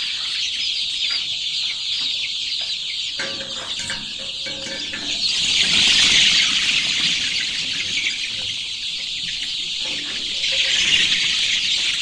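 A large flock of young chickens peeping and chirping together in a dense, high-pitched chorus, swelling louder around the middle and again near the end.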